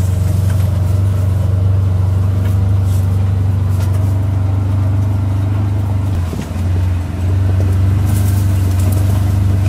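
Side-by-side UTV's engine running steadily while it drives along a rough, rocky trail, a loud low drone that dips briefly about six seconds in.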